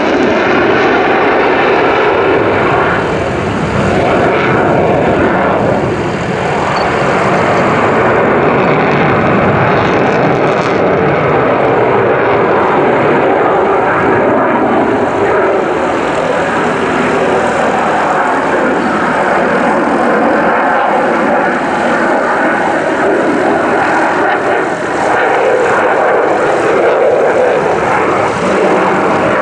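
Loud, steady jet-engine roar from a Belgian Air Force F-16 manoeuvring in flight, its single Pratt & Whitney F100 turbofan easing slightly a couple of times before building again.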